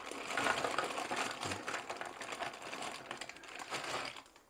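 Frozen thin chips (french fries) poured from a plastic bag onto a plate: a dense clatter of light clicks as they land, with the bag crinkling, dying away near the end.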